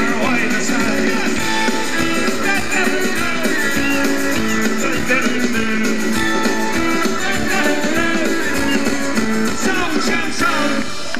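Live rock band playing the instrumental close of a song on acoustic and electric guitars, keyboards and drums, stopping sharply near the end.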